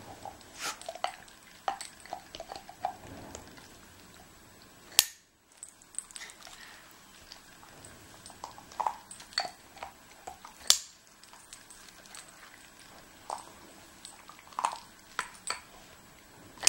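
Rings of a ring-stacking toy knocking and clicking against their wooden peg and each other as a wheaten terrier takes them in its mouth, with the dog's teeth clicking on the rings. The knocks are scattered and irregular, with two sharper ones about five and eleven seconds in.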